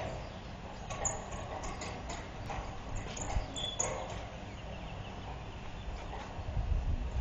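Motorized sliding metal gate rolling slowly open along its ground track: a low running rumble with irregular clacks and knocks.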